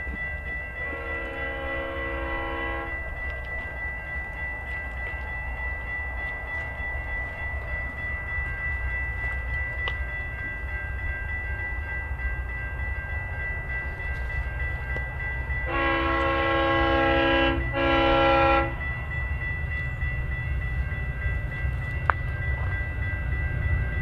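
Diesel locomotive horn sounding a multi-note chord for about two seconds about a second in, then a long blast and a short one about two-thirds of the way through, from heritage locomotive C501 leading a grain train. Under it, the low rumble of the locomotives' diesel engines and the train grows louder as it approaches.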